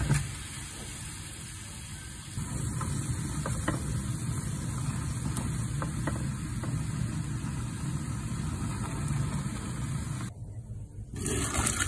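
Water at a rolling boil bubbling in a pan around instant ramen noodles, a steady low rumble, with a few light clicks of chopsticks against the pan.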